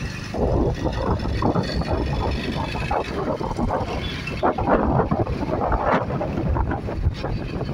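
Wind buffeting the microphone on a moving motorcycle in an uneven, gusty rush, over the low rumble of the engine and tyres on the road.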